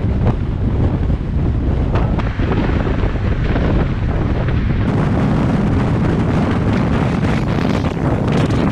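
Wind buffeting the microphone of a camera held outside a moving car, a loud, steady rushing with a heavy low rumble.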